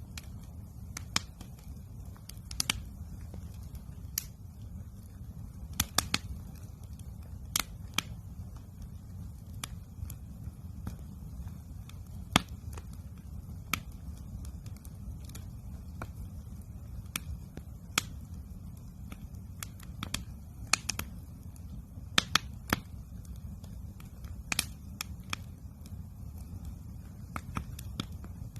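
Wood campfire crackling, with sharp irregular pops scattered over a steady low rumble.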